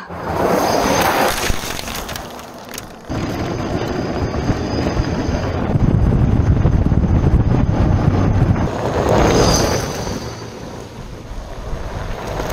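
Electric hub-motor quad bike riding along a gravel road: wind rushing over the microphone and tyres on gravel, in short cuts with a sudden change about three seconds in.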